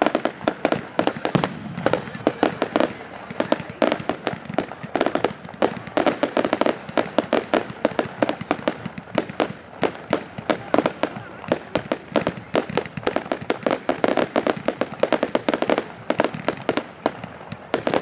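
Firework display: a dense, continuous barrage of sharp bangs and crackles, several reports a second with no let-up.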